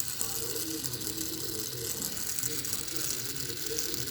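Fidget spinner spinning with a fast, steady clicking rattle.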